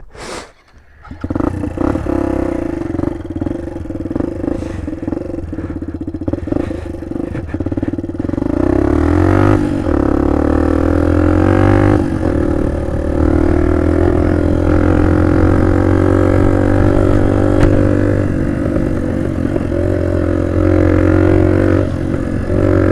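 Small motorcycle engine pulling away about a second in and running under way, its note climbing around eight to ten seconds in and then holding steady, with brief drops in revs twice later on.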